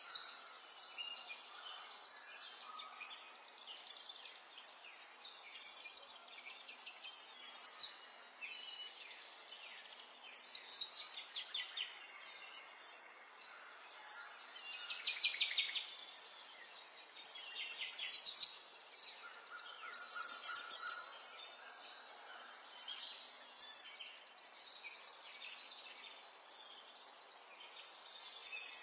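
Small songbirds singing: short phrases of rapid, high trilled notes, one every two or three seconds, over a faint steady hiss.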